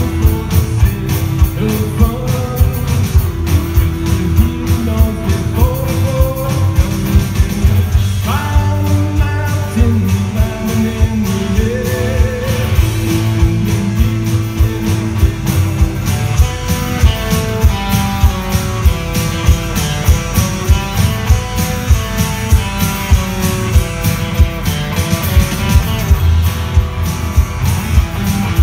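Live rock band playing an instrumental break: a lead guitar solo with bent, sliding notes and later quick runs of short notes, over acoustic guitar and a drum kit keeping a steady beat.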